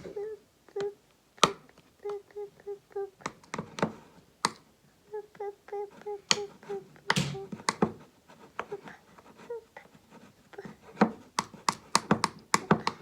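A spoon clicking and knocking irregularly against a bowl while peanut butter is being stirred, the taps coming faster near the end.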